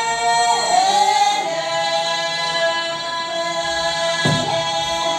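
Karbi folk dance music with long, steady held notes that dip briefly in pitch near the start. A short knock comes a little after four seconds in.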